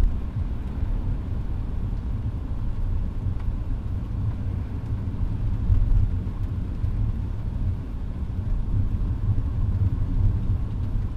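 Steady road noise inside a moving car's cabin: a continuous low rumble of engine and tyres on the road.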